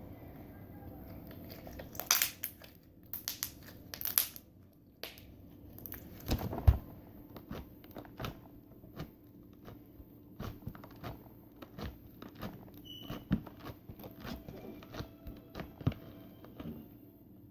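Hands squishing and stretching homemade slime, giving off a string of sharp clicking pops from trapped air, loudest in clusters about two to four and six to seven seconds in.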